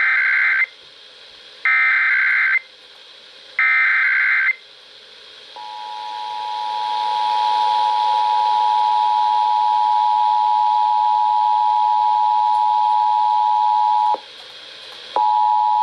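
Emergency Alert System test heard over the radio: three SAME header data bursts, a buzzy digital screech repeated three times, then the two-tone attention signal (853 and 960 Hz) held steadily for about nine seconds. The tone drops out for about a second near the end and then resumes, with radio hiss underneath.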